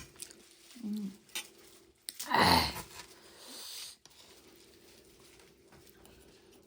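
Noodles being slurped once with a loud airy draw a little over two seconds in, amid small wet mouth clicks of chewing and a short hummed 'mm'.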